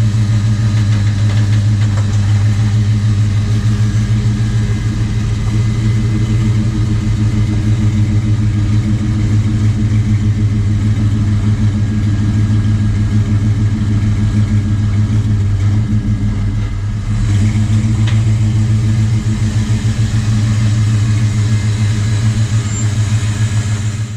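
Pressure washer's engine running steadily under load, a constant low drone with a slight change in its note about 17 seconds in.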